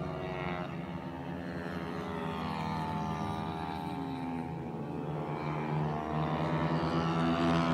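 Racing dirt bike engine running hard around a dirt oval. Its note rises and falls through the turns and grows louder near the end.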